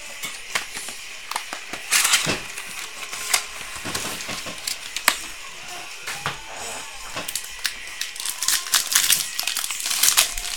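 Trading-card pack being opened and its cards handled: crinkling wrapper and a string of small clicks and rustles as cards are slid and shuffled, busier near the end.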